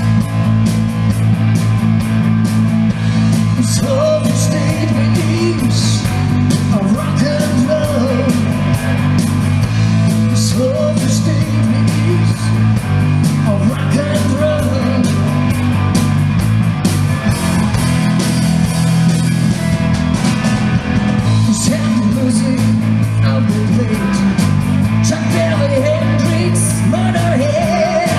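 Rock band playing live: electric guitars and drums over a heavy low end, with a lead voice singing.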